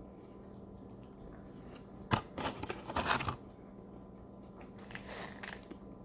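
Paper fast-food packaging crinkling and rustling as food is handled, in two short bursts: a sharp click about two seconds in, followed by about a second of rustling, and a fainter rustle near the end.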